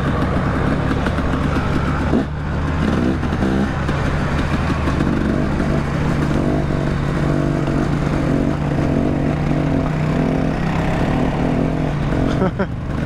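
Off-road vehicle engine running steadily while riding a trail, its low hum under a constant rush of noise, with a few brief changes in engine pitch.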